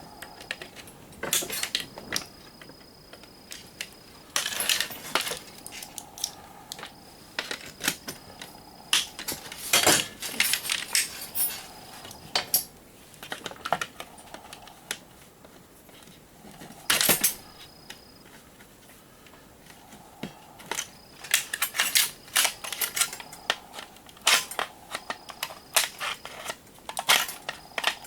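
Irregular clinks and clattering of small metal parts and hand tools being handled while a surge protector is taken apart.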